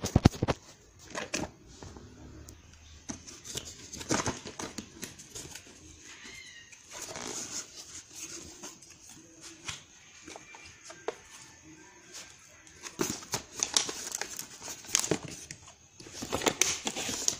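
Cardboard shipping box being opened by hand: flaps pulled open and a smaller cardboard box slid out. Irregular scraping and rustling of cardboard with scattered knocks.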